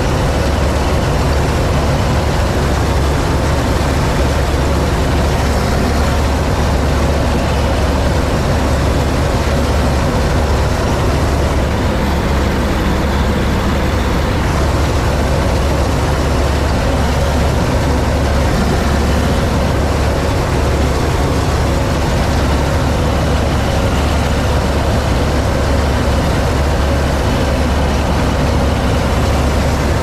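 Massey Ferguson 86 combine harvester running steadily under load while harvesting: a loud, even engine drone with the noise of the cutting header and threshing machinery, heard close up from the cab.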